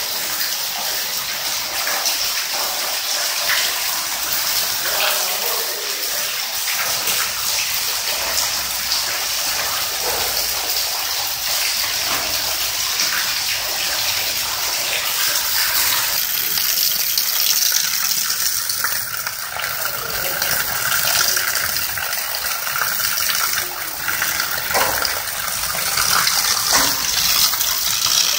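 Heavy rain pouring onto a flooded concrete floor: a steady rushing, splashing hiss of falling water.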